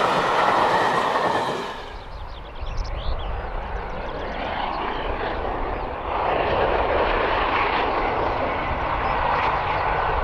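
A steam train running: loud at first, then an abrupt cut about two seconds in to a quieter, windy rumble of the train that swells louder about six seconds in.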